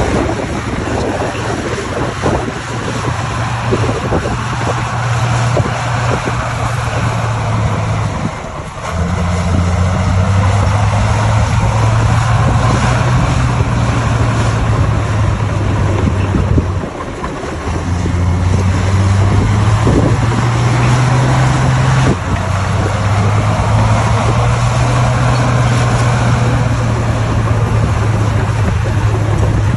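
Bulldozer's diesel engine running hard under load, its pitch dropping briefly about nine seconds in and again near seventeen seconds, then shifting once more a few seconds later. A dense grinding, rattling noise runs over it, from the machine working as it pushes stone.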